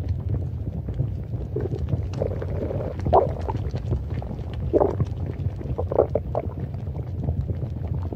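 Stomach gurgling: a steady low rumble with irregular louder gurgles every second or so, the strongest about three, five and six seconds in.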